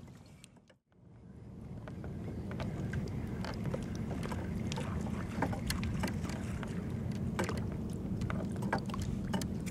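Sound from a kayak on choppy water: a steady low rumble of wind on the microphone, with water lapping at the hull and scattered small knocks. It drops out briefly about a second in, then fades back up.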